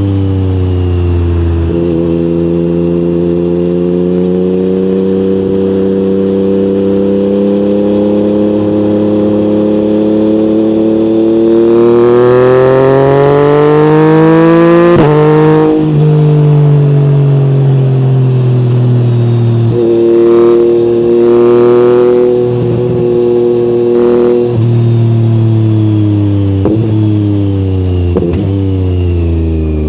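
Yamaha MT-09 crossplane three-cylinder engine through an Akrapovic exhaust, ridden on the road: it pulls with a steadily rising note to about halfway, breaks off sharply at an upshift and winds down. Later there is a higher, steady stretch broken by short gaps, then lower running with two quick gear changes near the end.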